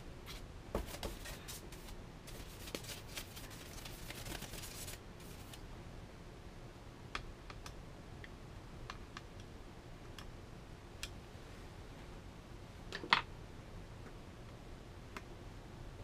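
Soft brush sweeping dust from the inside of an opened MacBook Pro, a dense scratchy rustle of bristles for about the first five seconds. After that only scattered light clicks and taps, the clearest about thirteen seconds in.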